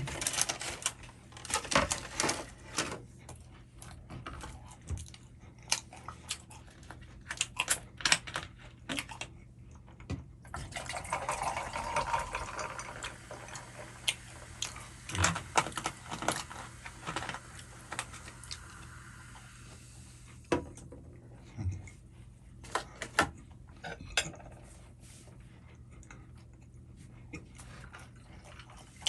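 Close-up eating sounds: a quick run of clicks and clinks of utensils against a dish, then about ten seconds of steadier noise from eating in the middle, followed by a few scattered clicks.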